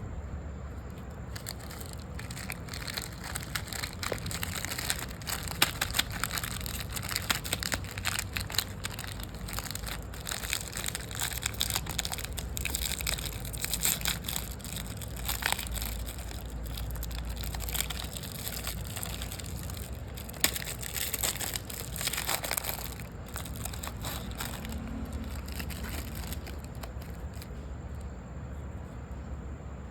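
Crisp snack food crunching and crackling: a dense run of sharp crackles with a few louder snaps, easing off near the end.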